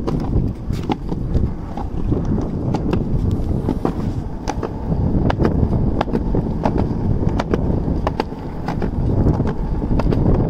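Skateboard wheels rolling on a concrete sidewalk: a steady, rough rumble broken by frequent sharp clacks as the wheels cross the joints between the slabs.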